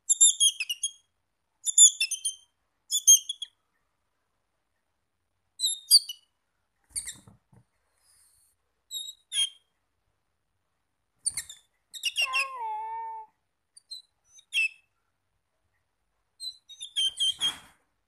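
Fledgling birds chirping: short, high, rapid chirps in bursts every second or few seconds. About twelve seconds in there is one longer call that falls in pitch.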